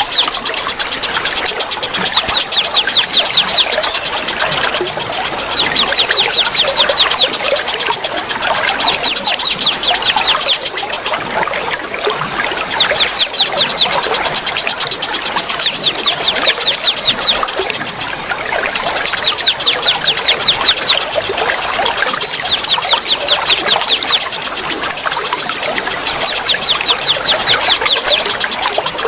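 Young wild songbirds giving a rapid chattering call, a burst of about eight sharp high notes a second lasting about a second and a half, repeated regularly roughly every three and a half seconds. Water trickles steadily underneath.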